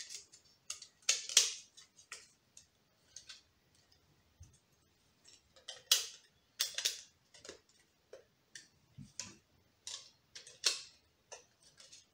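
Hard plastic toy parts of a Wonder Ride Book display shelf being handled and pressed together by hand: irregular sharp clicks and snaps of plastic with short quiet gaps, the louder ones about a second in, around six to seven seconds in, and near eleven seconds.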